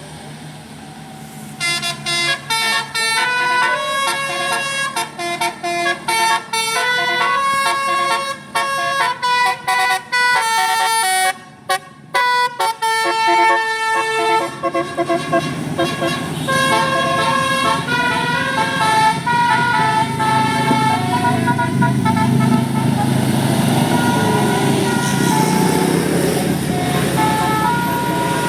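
Bus 'Basuri' telolet horn playing a tune of quick stepped notes, starting about two seconds in and breaking off briefly near the middle before playing on. In the second half a rising rumble of bus engine noise builds up under the horn.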